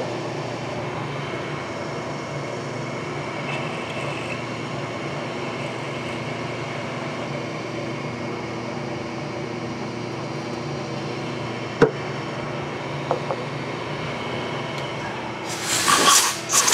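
Vertical milling machine running, its spindle driving a 9 mm end mill down into a round metal part to cut a counterbore for a 5 mm Allen screw head: a steady motor hum with cutting noise. A single sharp click about twelve seconds in, then a loud hiss near the end as compressed air is blown at the cutter.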